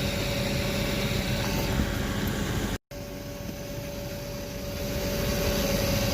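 Tractor and sugar beet harvester running, a steady engine drone with a constant whine. It cuts out for a moment about three seconds in, then carries on.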